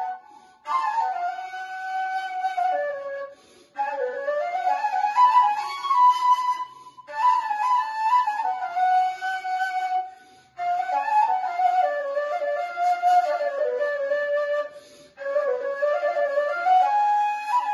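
Arabic ney, an end-blown reed flute, playing a melody in phrases of a few seconds, each broken off by a short pause for breath, with notes sliding up and down between pitches.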